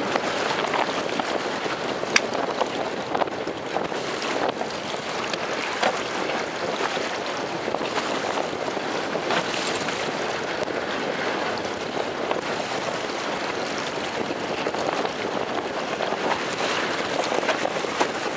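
Wind buffeting the microphone over choppy sea water: a steady rushing noise with scattered short ticks, the sharpest about two seconds in.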